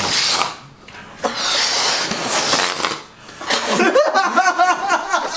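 Air hissing out of inflated rubber balloons, in a short rush at the start and a longer one of about two seconds. It is followed in the last couple of seconds by quick, repeated, pitched laughing.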